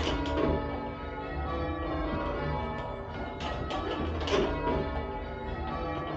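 Church tower bells ringing rounds: the full-circle bells strike one after another, down the scale in a steady, even sequence, and their tones hang on and overlap.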